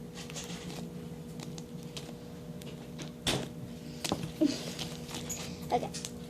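Fluffy slime being gathered up and squished by hand: irregular sticky clicks and pops, a few louder ones in the second half, over a faint steady hum.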